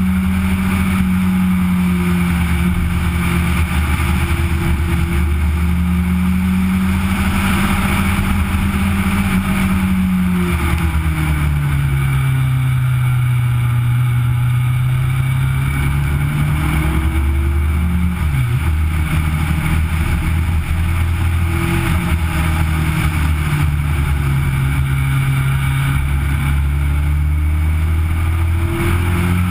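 Legend car's Yamaha four-cylinder motorcycle engine under racing load, heard onboard: steady high revs, dropping in pitch into a corner about ten seconds in and climbing back out, with a brief sharp dip in revs a couple of seconds later before running steady again.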